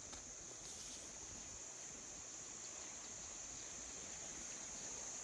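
Faint steady insect chorus, a continuous high-pitched buzz, with a brief faint rustle about a second in.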